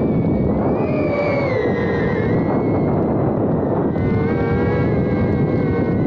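iFlight A85 HD FPV drone's motors and propellers whining, the pitch sliding up and down with the throttle, under heavy wind noise on the microphone.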